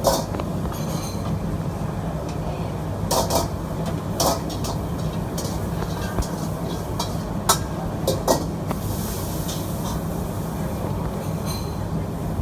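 Steady roar of a hawker stall's wok cooking station, broken by about five sharp clanks of a metal utensil striking the wok while mee goreng is stir-fried.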